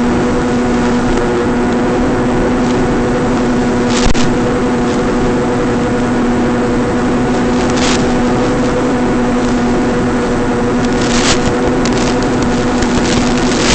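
Electric motor and propeller of a small flying wing droning steadily at one pitch, over a steady hiss. Short bursts of static come about four, eight and eleven seconds in.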